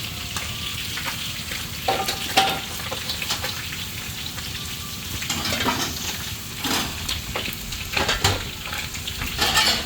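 Food sizzling steadily in a hot pan while being stir-fried, with a few sharp scrapes and clinks of the spatula against the pan.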